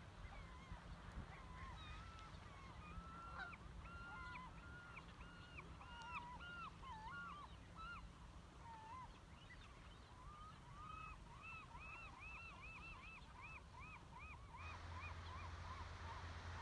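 Faint honking calls from a large flock of waterbirds, many overlapping, with a quick run of repeated calls toward the end. A steady hiss comes up near the end.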